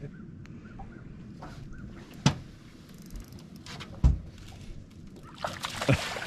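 Two sharp knocks, about two and four seconds in, against a low steady rumble, then a burst of splashing near the end as a hooked smallmouth bass thrashes at the surface during the fight.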